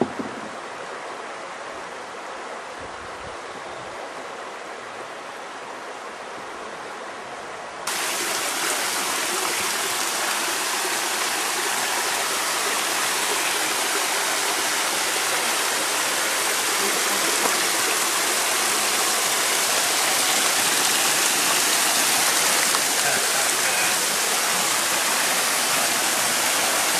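Steady rush of a waterfall splashing down onto rock and into a pool. It gets louder and brighter suddenly about eight seconds in.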